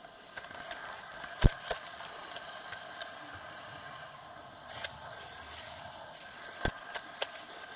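Model train running on its track, heard from a camera riding on it: a steady rattling hum broken by sharp clicks, the loudest about a second and a half in and again near the end.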